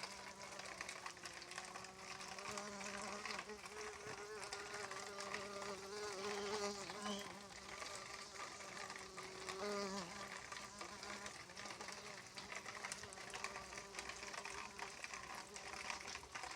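Bumblebee buzzing, a steady low hum that wavers in pitch a few times.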